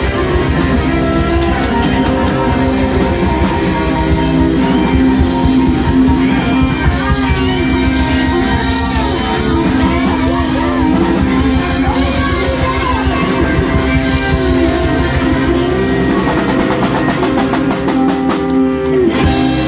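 Live blues band playing: electric guitars over drums, with sustained and bending notes. The lowest part of the sound drops away shortly before the end.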